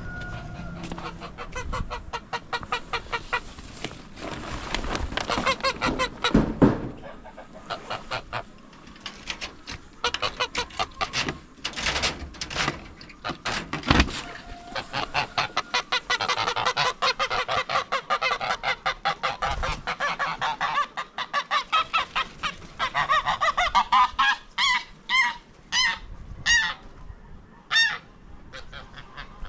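Poultry calling loudly in rapid, repeated runs of honking squawks, with a few sharp thumps among them.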